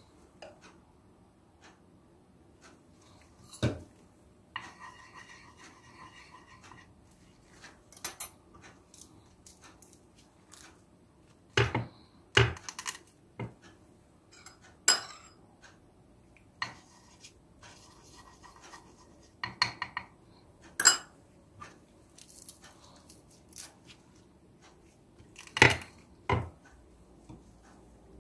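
Handling noise: scattered sharp clicks and light taps as a teaspoon, fruit slices and a dropper bottle are handled around a small bowl and tray, about a dozen spread out with quiet gaps between.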